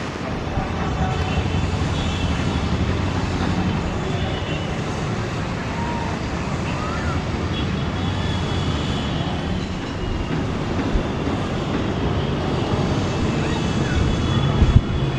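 Jet airliner's engines running as it taxis onto the runway, a steady hum and rush heard from a distance, with a brief thump near the end.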